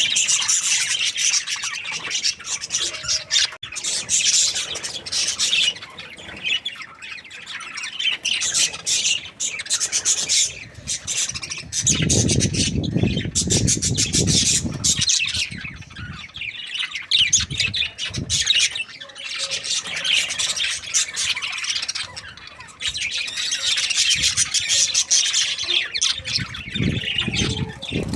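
Budgerigars chattering and squawking continuously, many fast overlapping chirps, with a stretch of low, muffled noise around the middle.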